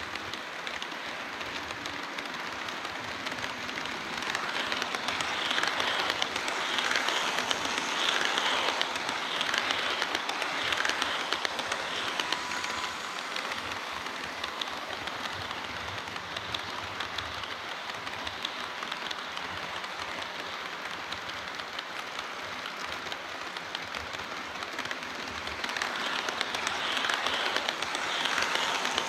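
HO-scale model train running on the layout's track: a dense clicking rattle of small metal wheels over the rails, swelling as the train passes close between about 4 and 12 seconds in and again near the end.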